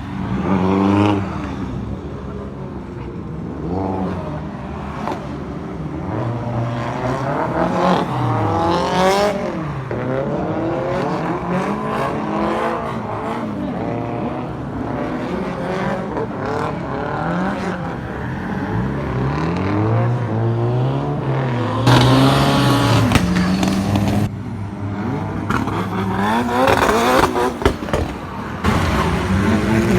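Drift cars' engines revving up and falling off again and again as they slide through the course. Louder rushes of tyre and road noise come about two-thirds of the way through and again near the end.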